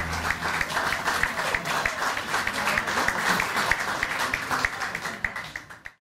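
Audience in a small room applauding, with a few voices mixed in; the applause fades out near the end.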